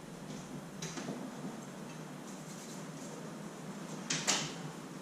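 Faint handling clicks of metal door-lock parts. About four seconds in there is a sharper metallic clack and a brief rattle.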